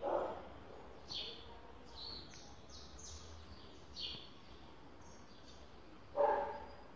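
A dog barks twice, once at the start and again about six seconds later, with short high bird chirps in between.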